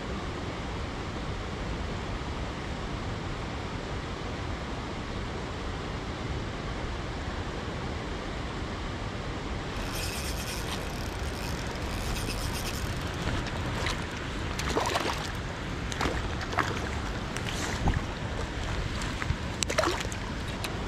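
Steady hiss of running water. About halfway through a thin high hiss joins it, and in the last third there is a scattering of sharp clicks and taps.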